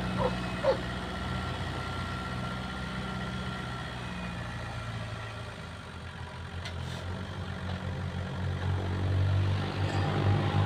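Homemade tractor's engine running steadily as it pulls an implement through the soil, fading as it drives away and growing louder again as it comes back near the end.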